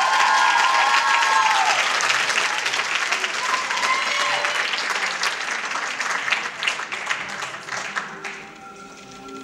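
Theatre audience applauding, loud at first and dying away about eight seconds in.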